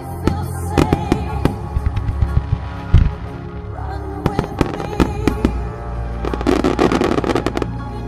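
Aerial firework shells bursting with sharp bangs at irregular intervals, and a dense burst of crackling about six and a half seconds in, over music with long held tones.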